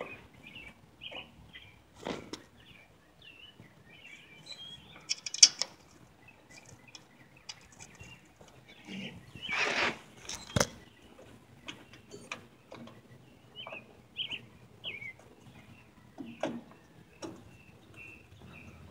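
Scattered metal clicks and clinks of a box-end wrench and wheel cylinder bolts being handled against the brake backing plate, with one sharp clink about five seconds in and a brief scrape around ten seconds. Faint high chirps come and go underneath.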